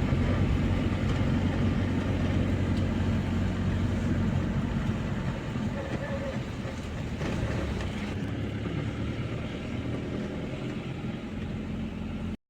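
Steady low rumble of a motor vehicle's engine and road noise, which eases slightly about halfway through and cuts off abruptly near the end.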